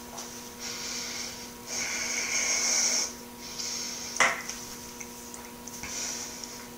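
A person breathing out hard with a hiss through the mouth and nose after a shot of liquor burns going down. There is one sharp click about four seconds in, over a steady electrical hum.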